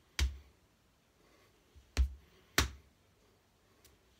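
Hands slapping the body in time with an action song: a sharp slap about a quarter second in, then two more about half a second apart around two seconds in, with a couple of faint taps between.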